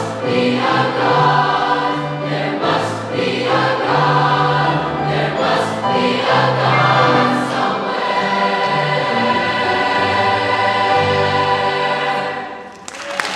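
Large mixed youth choir singing in harmony, ending on a long held chord in the last few seconds that fades away. Applause bursts in right at the end.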